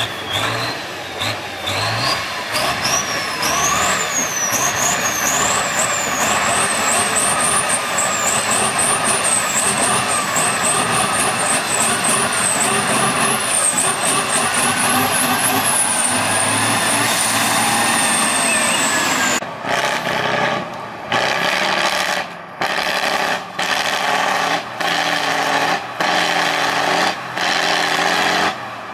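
Tatra 813 8x8 truck's diesel engine working hard on a climb, with a high whine that rises in pitch over the first few seconds, wavers up and down, then fades. About two thirds of the way in it gives way to another trial truck's engine revving, broken by several brief gaps.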